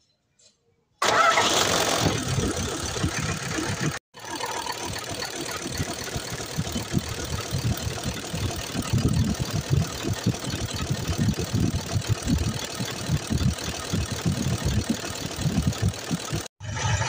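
Isuzu Giga truck diesel engine coming in suddenly about a second in and then idling, with uneven low pulsing, as its clutch-driven cooling fan spins.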